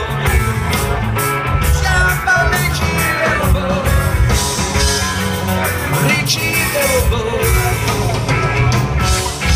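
Live rock band playing, with drums and guitar over a steady bass line.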